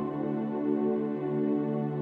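Soft new-age ambient background music: sustained, held chords that swell gently.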